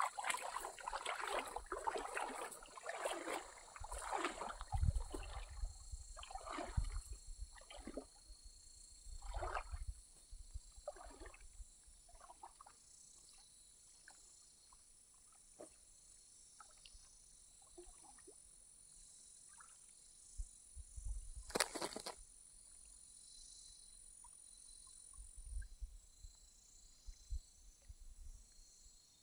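Water sloshing and splashing in irregular bursts, dense for the first few seconds and thinning out by about ten seconds in, with a few faint splashes later, over a steady high-pitched hiss. A single sharp knock about two-thirds of the way through.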